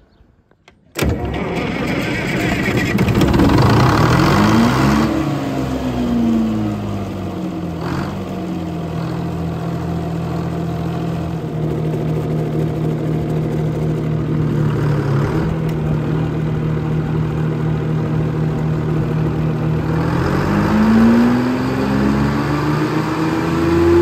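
Sawmill power-unit engine starting about a second in, revving up and then dropping back to a steady idle, with its speed rising again near the end.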